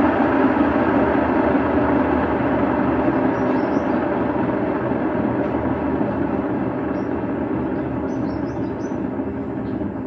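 Sanken single-tub washing machine's spin-dry tub coasting down after its motor has cut out at the end of the spin cycle: a steady whirring rumble that slowly fades.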